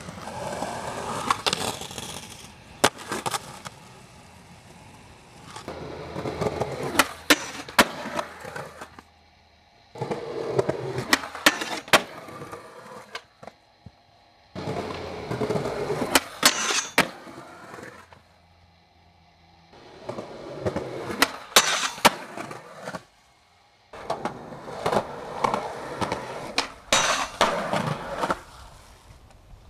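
Skateboard wheels rolling on concrete, broken by sharp cracks of the board popping and landing, in a run of five or six short takes with brief silences between them.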